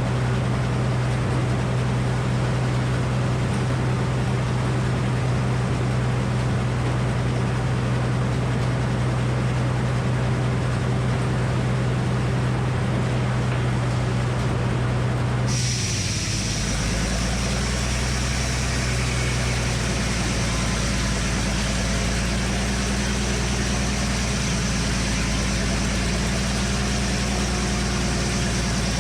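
Frick circular sawmill and its drive engine running steadily while sawing a poplar log, a loud mechanical drone with a strong low hum. A little past halfway the sound changes abruptly to a deeper engine note with added high hiss.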